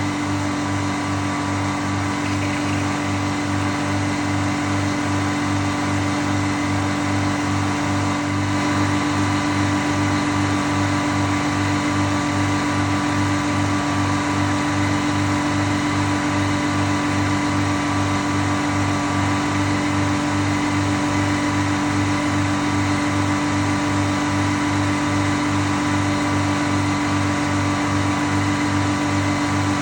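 Frick circular sawmill running steadily, its power unit and spinning blade giving a loud, even hum with a regular low pulsing; the sound grows slightly louder about eight seconds in.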